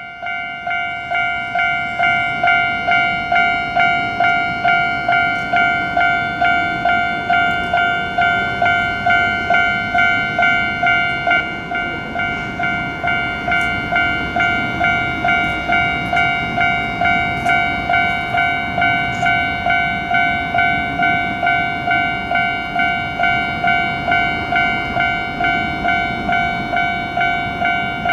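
Japanese level-crossing warning bell ringing its repeated 'kan-kan' alarm, just under two strikes a second, over the low rumble of a passing train.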